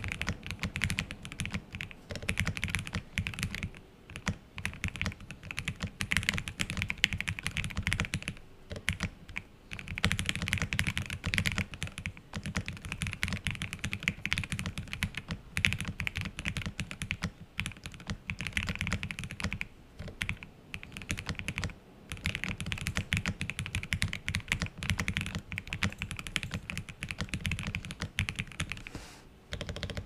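Steady fast typing on an OwLab Voice65 mechanical keyboard with lubed and filmed Alpaca linear switches, a polycarbonate plate, Poron foams and PBT Cherry-profile keycaps, the board resting on a bare desk without a mousepad. A dense run of keystrokes broken by a few short pauses.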